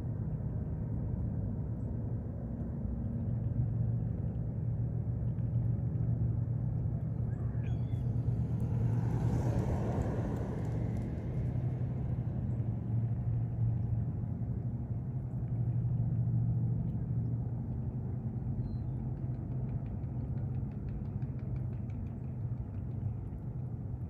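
Boat engine running with a steady low drone. A rush of noise swells about eight seconds in and fades away about four seconds later.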